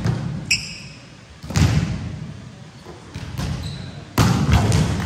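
Volleyballs being spiked and smacking off the gym floor: several sharp, echoing hits, with a short high squeak about half a second in.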